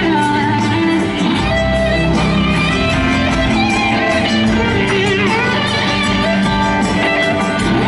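Live rock band playing: electric guitars over drums and bass, with a lead line of wavering, bending notes.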